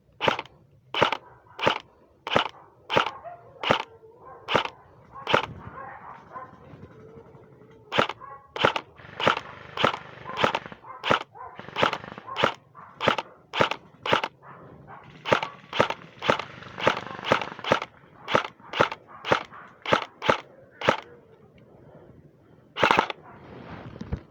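Airsoft gun firing single shots, about two to three sharp cracks a second in strings broken by short pauses, with one louder shot near the end.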